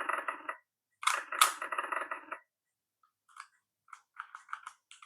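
VTech Go! Go! Smart Wheels toy car's small speaker playing a harsh, crackly sound effect in two bursts of about a second and a half each, followed by a run of light clicks.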